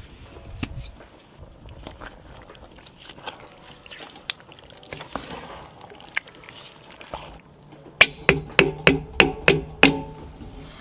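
Wooden spoon stirring a thick bean stew in a cast-iron Dutch oven, with small scraping and wet clicks. Near the end the spoon is knocked against the pot about seven times in quick succession, each knock ringing the cast iron briefly.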